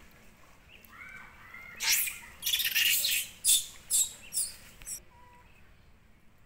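Macaque cries: a few short squeals, then a run of about five loud, harsh screams that cut off suddenly about five seconds in.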